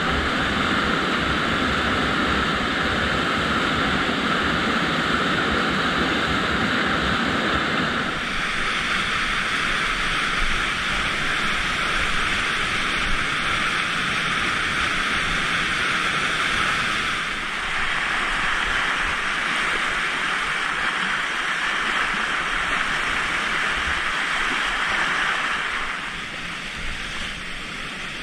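White water rushing over and churning below a river weir, a steady loud rush whose tone shifts a few times and drops a little near the end.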